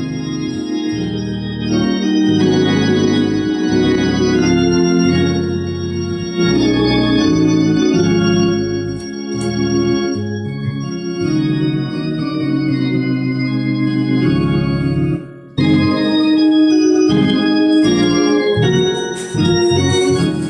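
Hammond console organ played with both hands: held chords over a moving bass line, with a short break about fifteen seconds in.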